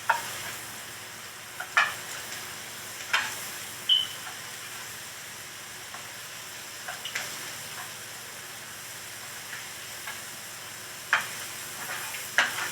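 Eggs frying in a pan with a steady sizzle, while a utensil stirs and clicks against the pan a few times.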